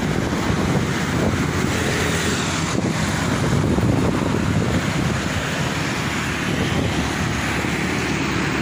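Wind buffeting the microphone of a moving electric bike, with road traffic passing; it swells a little about four seconds in as cars go by close.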